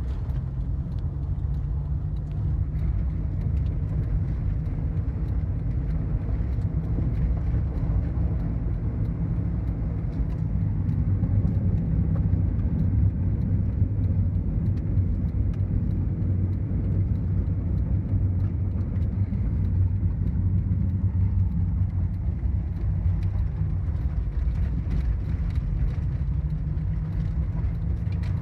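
Car running down the road, heard from inside the cabin: a steady low rumble of engine and tyre noise with a faint hum, a little louder in the middle.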